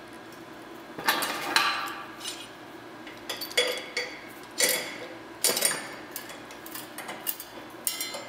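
Steel screw clamps being set and tightened onto a steel channel, a homemade brake: a string of sharp metal clanks and clinks with a short ring as the clamp bars and pads knock against the steel.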